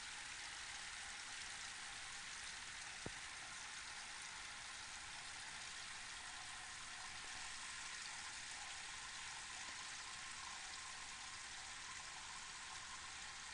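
Diamond Rain Fountain running: thin streams of water falling through its tiered shelves, a steady, even patter like gentle rain. A single small click about three seconds in.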